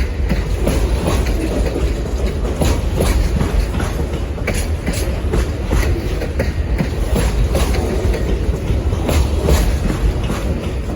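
Amtrak Auto Train's railcars rolling past: a steady low rumble with wheels clicking over rail joints several times a second.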